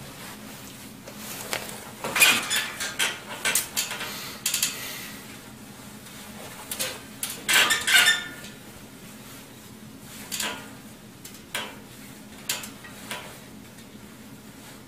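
Clattering, clinking knocks like dishes and cutlery, in two busy clusters, about two seconds in and about eight seconds in, then a few single knocks.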